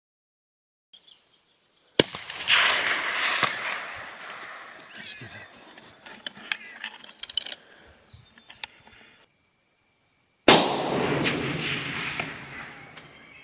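Two rifle shots from a 7mm hunting rifle, about eight and a half seconds apart, each followed by a long echo that dies away over a couple of seconds. There are a few light clicks between them.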